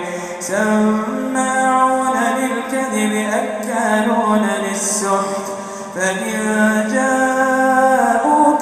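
A man chanting the Quran in melodic tajwid style, one voice drawing out long held notes with ornamented turns of pitch, with a short breath about six seconds in.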